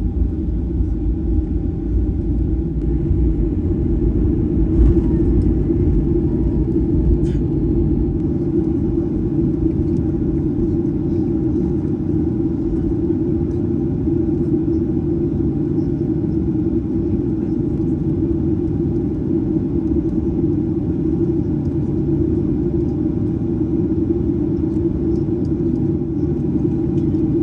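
Cabin noise of a Boeing 737-800 taxiing: a steady low rumble with a faint hum from its CFM56 engines at taxi power. The deepest part of the rumble eases about eight seconds in.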